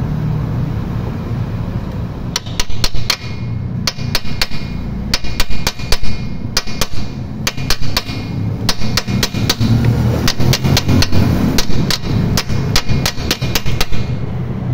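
A hammer striking a 19 mm impact socket held against a new coolant core plug (freeze plug), driving it into the engine block. The sharp metallic blows come in quick irregular runs starting about two seconds in, over a steady low hum. The plug is being seated flush with the block.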